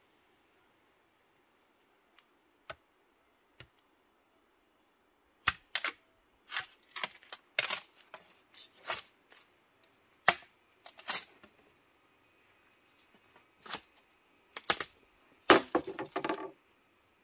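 A series of irregular sharp snaps and clicks, about a dozen, starting a few seconds in and ending in a denser cluster near the end, over a faint steady high tone.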